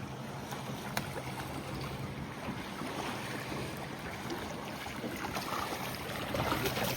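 Steady boat ambience at sea: a low, even engine hum under the rush of water and wind on the microphone.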